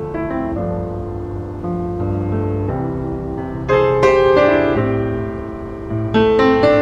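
Background piano music, with chords held and new notes struck every second or so, growing louder about halfway through.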